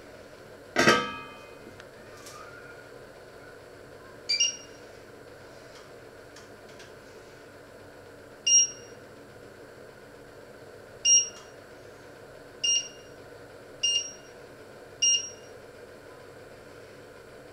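A stainless steel pot lid clatters down onto the pot and rings briefly, about a second in. Then the glass-ceramic hob's touch controls beep six times as they are pressed: short, high single beeps a second or more apart.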